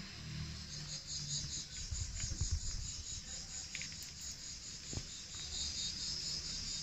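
Insects chirping in a steady high-pitched pulse, several chirps a second, with faint low bumps from the pot being handled.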